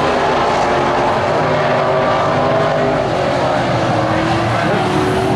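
Several vintage modified race car engines running at racing speed around a short oval, a loud steady blend of engine notes. Pitches shift up and down as the cars work through the turns, with a rise near the end.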